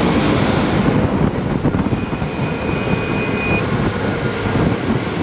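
KTM 390's single-cylinder engine running while riding in traffic, mixed with steady wind rush.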